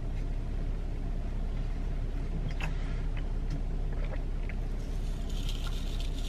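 Car engine idling, heard from inside the cabin as a steady low hum. A few faint ticks in the middle, and from about five seconds in a crinkling hiss as a pre-workout powder packet is handled and emptied.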